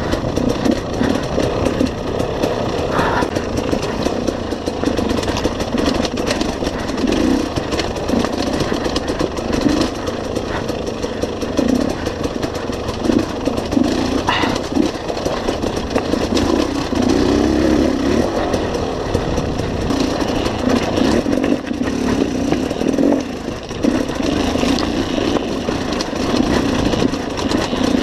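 KTM enduro motorcycle engine running on a rocky trail, heard from on the bike, its note rising and falling with the throttle. A few sharp knocks stand out, about three seconds in and again about halfway through.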